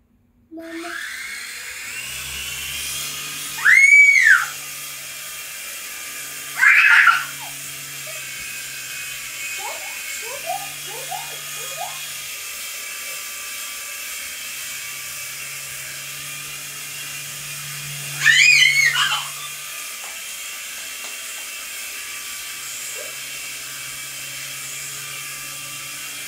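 Small electric motor and rotor of a toy radio-controlled helicopter whirring with a steady high whine. Three loud high squeals rise and fall in pitch over it, at about 4, 7 and 18 seconds in.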